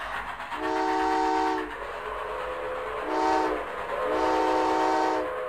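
Train whistle sound effect: three chime blasts of several notes at once, long, short, long, over a steady rushing background.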